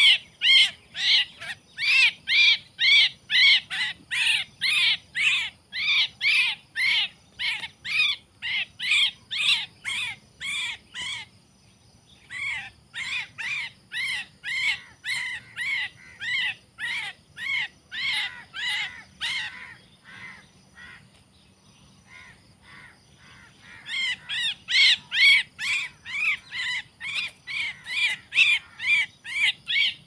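Javan myna (jalak kebo) caught in a mist net, calling over and over in short harsh cries about three a second while it is handled. The cries break off briefly twice, the second time for several seconds, then resume.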